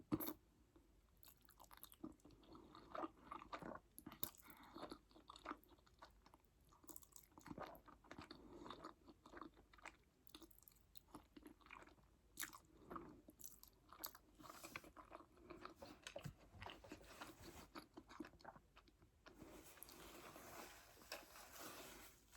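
A person chewing a mouthful of food close to the microphone: soft, irregular mouth clicks and smacks, with a longer hiss near the end.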